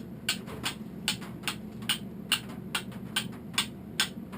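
Steel flint striker, forged from an old file, struck against flint again and again: sharp, even clicks about twice a second, throwing sparks, over a low steady hum.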